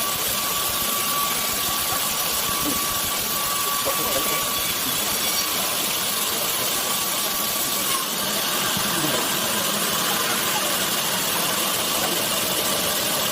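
Sawmill machinery running with a steady, dense noise and a thin steady whine that stops about a third of the way through; the noise shifts slightly about two-thirds of the way in.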